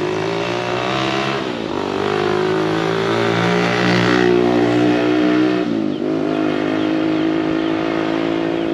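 A motor vehicle's engine running close by, its pitch dipping and rising again about a second and a half in and once more about six seconds in, as with gear changes.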